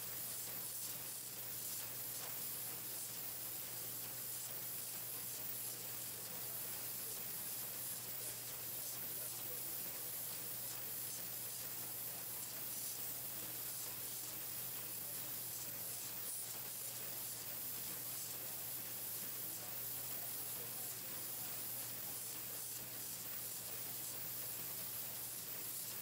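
Pencil-painting machine running steadily: an even hiss with a constant low hum underneath.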